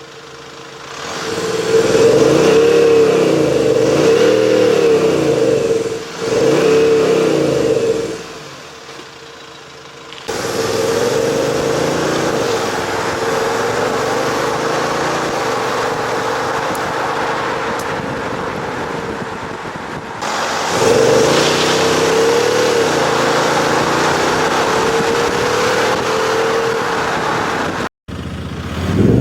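Synthesized AMG GT-style V8 engine sound played through a JSR Soribak active sound module on a Kia Carnival, not the real exhaust. It swells up and down twice in the first few seconds like revving, then runs steadier with gentle rises and falls, cutting off abruptly between segments about ten and twenty seconds in.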